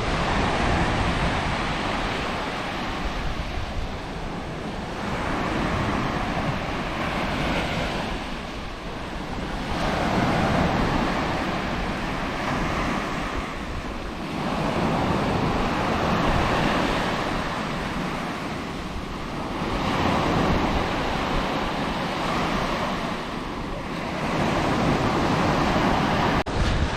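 Sea surf washing onto a shallow beach, the noise of the breaking waves swelling and ebbing every few seconds, with wind buffeting the microphone.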